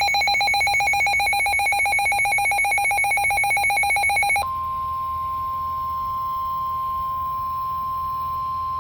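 Emergency alert tones: a loud trilling electronic tone, pulsing rapidly like a phone ringer, for about four and a half seconds, then a sudden switch to a single steady tone, the 1050 Hz NOAA Weather Radio warning alarm that heralds a new warning message.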